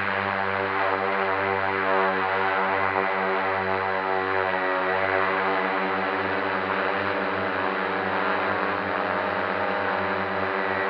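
FPV quadcopter's motors and propellers buzzing at a steady, slightly wavering pitch, with a rush of air over it.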